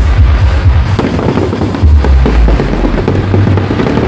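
Aerial fireworks crackling and popping over loud music with a heavy, pulsing bass.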